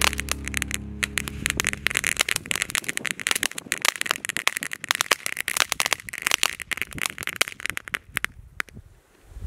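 Fireworks crackling: a dense rattle of rapid small pops that thins out and stops shortly before the end.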